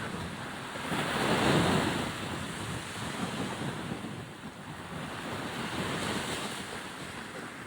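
Sea waves washing on the shore, with wind buffeting the microphone; one wave surges louder about a second in.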